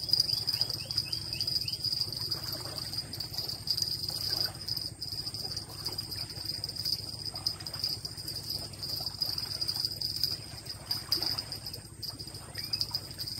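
Insects calling in a steady, high, shrill drone with a slight pulse, over a low steady hum.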